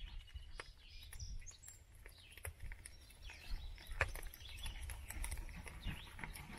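Wood fire crackling inside a cob oven, with scattered sharp pops and one louder pop about four seconds in, over a low rumble.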